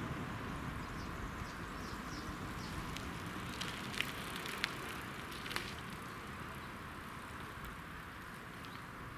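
Steady outdoor rushing noise, slowly fading, with three light sharp clicks in the middle.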